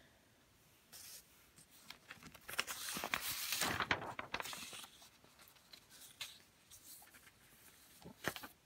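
Sheets of lined paper rustling as pages are handled and flipped, with light taps and clicks. The rustle is loudest about three to four seconds in, and there are a couple of sharp taps near the end.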